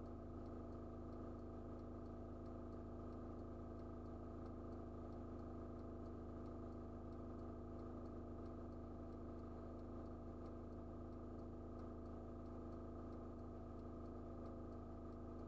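Inside a stationary truck's cab, the diesel engine idling steadily: a low hum with several steady tones. A faint, regular ticking about three times a second runs through it.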